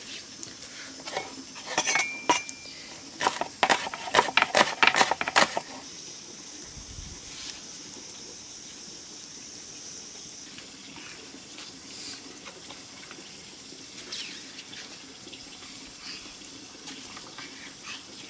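Metal dishes and utensils clinking and clattering in a quick flurry of sharp knocks for a few seconds, then a few scattered clinks over a faint hiss.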